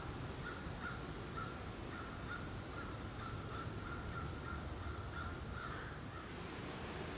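A bird calling in a steady run of rapid notes at one pitch, stopping near the end, over a low background rumble.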